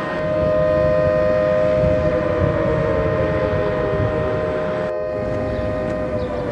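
Whine and rumble of an A-10 Thunderbolt II's twin TF34 turbofan engines: a strong steady whine over a low roar, slowly falling in pitch.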